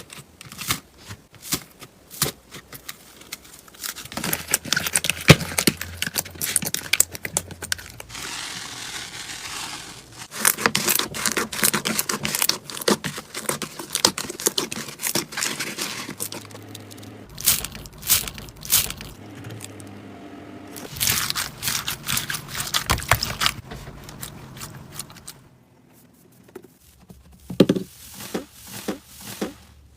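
Slime being squeezed, stretched and pressed by hand: dense, irregular crackling and popping clicks with sticky scraping and tearing sounds.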